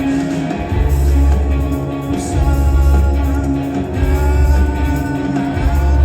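Live rock band playing. Deep bass notes are held in blocks of about a second and a half, with short breaks between them, under guitar and a higher melodic line.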